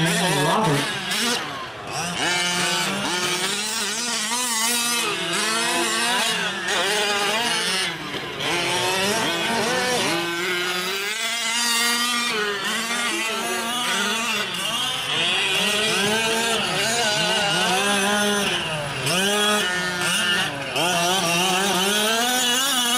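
Small two-stroke gas engines of several 1/5-scale RC trucks racing. The engines rev up and down constantly as the throttles open and close through corners and jumps, with several engines overlapping at different pitches.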